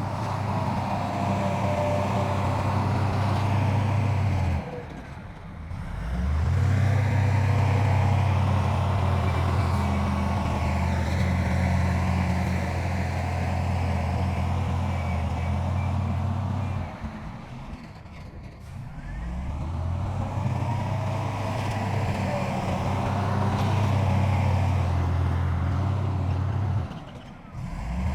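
Diesel engine of heavy earthmoving machinery running steadily with a low drone. It drops away briefly three times, about five, seventeen and twenty-seven seconds in, and picks up again each time.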